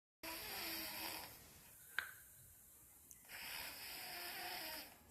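A sleeping person snoring: two long snores about three seconds apart, with a sharp click in the quiet between them.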